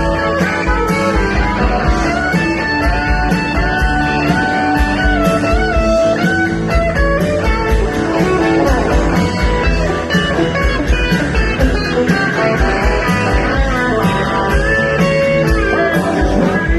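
Rock band playing live: a lead electric guitar with bending, sliding notes over a steady drum beat and bass, without vocals.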